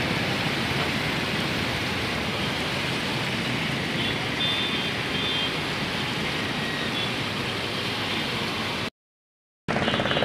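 Steady rushing of a swollen, muddy river in flood after heavy rain, fast turbulent water. The sound cuts out completely for under a second near the end.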